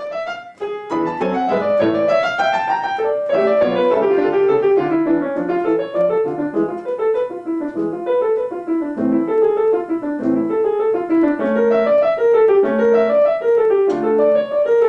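Acoustic piano playing a classical passage of many quick notes, with a short break less than a second in. The articulation at the start of notes is uneven, and the teacher asks right after for it to be consistent.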